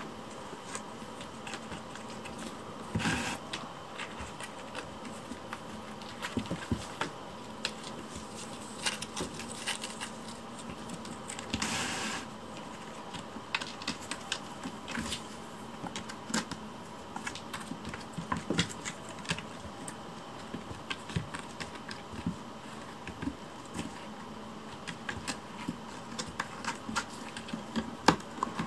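Kittens' paws and claws tapping and scrabbling on corrugated cardboard scratchers: a run of irregular light clicks and taps, with louder scuffles about three seconds in and near the middle, over a faint steady room hum.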